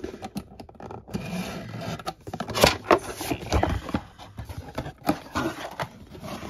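Tissue paper rustling and a cardboard gift box being handled and opened, with irregular scrapes and small knocks; the sharpest knock comes about two and a half seconds in.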